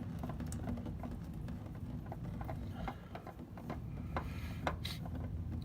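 Scattered light clicks and taps from hands and the oil filter being worked inside the engine bay, over a steady low hum.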